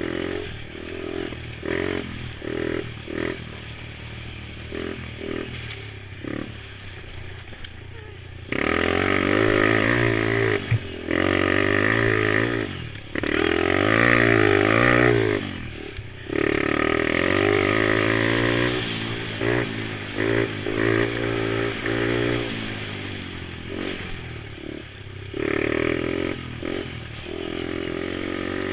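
Small mini-quad (youth ATV) engines revving: short throttle blips for the first several seconds, then louder running from about eight seconds in, its pitch climbing and falling repeatedly until around sixteen seconds, then choppy throttle again.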